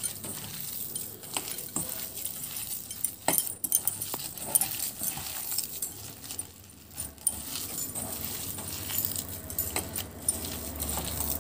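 A hand kneading a soft vegetable mash in a stainless steel bowl: quiet squishing with irregular light clicks and clinks against the metal.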